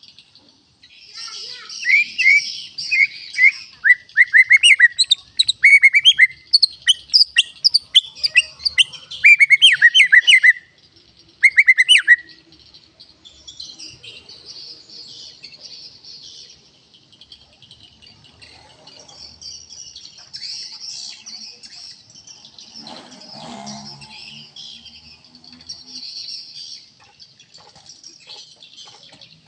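White-rumped shama singing a loud run of rapid, sharp chirps and whistles, which stops about twelve seconds in. After that a steady high insect buzz carries on.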